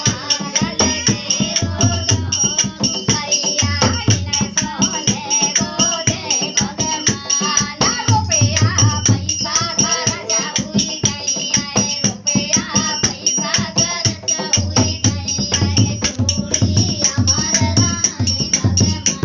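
Music with a fast, dense percussion rhythm and a bass beat that comes and goes.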